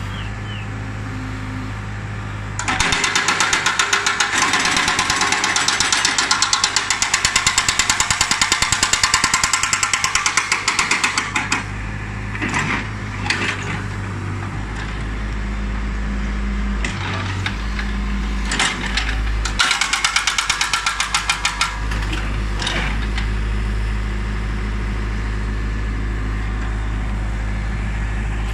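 Hydraulic rock breaker on a backhoe loader hammering limestone: a rapid run of blows for about nine seconds, then several short bursts. Under it, the loader's diesel engine runs steadily.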